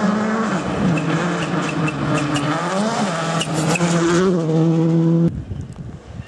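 Rally car engine at high revs, approaching and passing on a gravel stage, its pitch dropping and climbing with gear changes, with a few sharp cracks as it goes by. About five seconds in it cuts off suddenly to a much fainter, distant engine.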